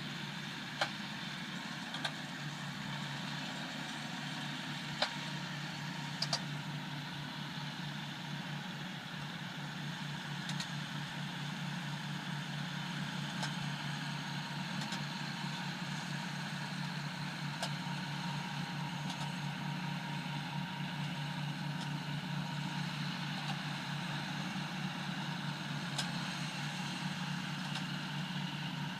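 Kubota M100X tractor's diesel engine running steadily under load while baling hay, with a few scattered sharp clicks over the drone.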